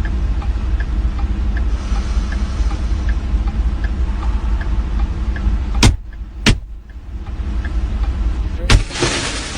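Steady low vehicle-like rumble with a faint tick about every three-quarters of a second. Sharp knocks come twice around six seconds in and once more near the end, followed by a burst of loud hissing noise.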